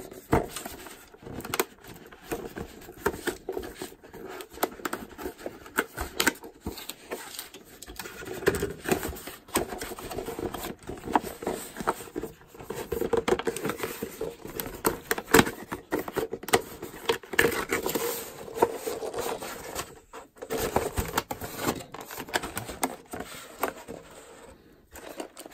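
A cardboard toy box being opened by hand: flaps and a paper insert scraping and rustling, with many irregular clicks and crinkles as the packaging and its clear plastic tray are handled.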